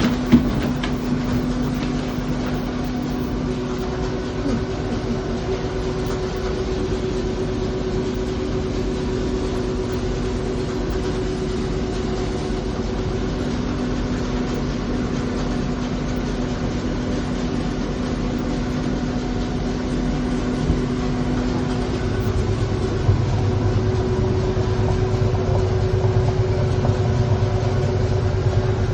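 Coin-operated rice milling machine running as it polishes brown rice into white rice: a steady mechanical hum with a held tone that shifts pitch a few times. About 22 seconds in, a louder low rumble comes in.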